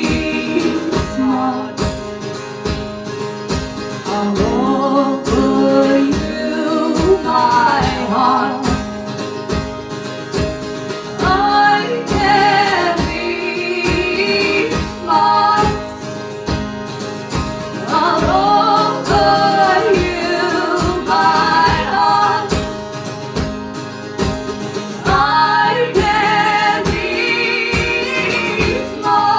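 Live song performance: women singing over strummed guitar with a steady beat.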